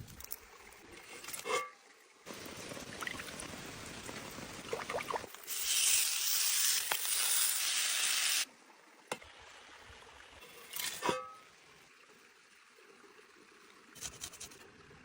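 Cooking sounds in short cut-together pieces. The loudest is a steady high hiss of liquid pouring or food sizzling from about five and a half to eight and a half seconds in. Quieter hiss and a few sharp clicks or knocks come before and after it.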